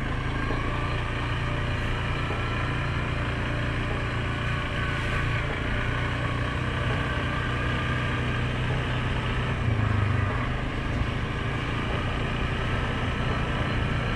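2019 Suzuki King Quad 750 ATV's single-cylinder engine running steadily under riding load on a trail, with a brief rise in level about ten seconds in.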